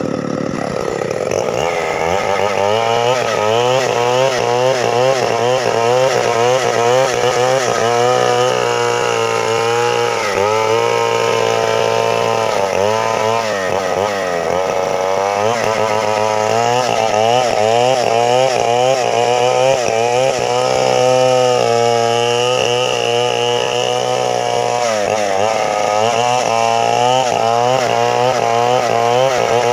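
Two-stroke chainsaw running at high revs, its engine pitch wavering up and down continuously and dipping lower several times.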